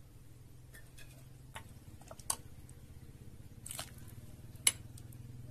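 Dishes and utensils handled while food is served: a few sharp clicks, the loudest about two-thirds of the way through, and a brief scrape, over a low steady hum.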